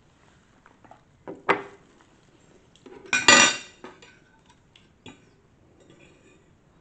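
Metal fork clinking and scraping against a ceramic plate of noodles, with a sharp knock about a second and a half in and the loudest, ringing scrape a little past three seconds in.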